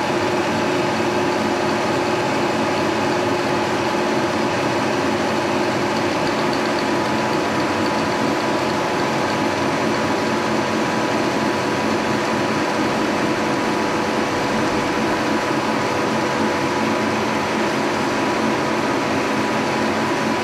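1943 Brown & Sharpe No. 2 Plain milling machine running steadily, its horizontally swung head milling a block of aluminum, with a steady whine over the running noise.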